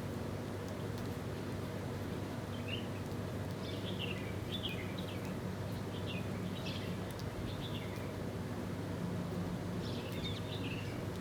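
Small birds chirping, short high calls coming in scattered clusters, over a steady low background hum.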